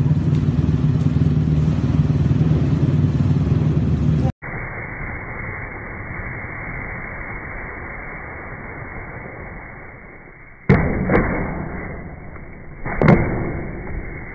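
A dirt bike's engine running steadily, then a cut to skis sliding on snow. Partway through come a sharp clack and a second one, then a louder knock near the end as the skis strike a rail.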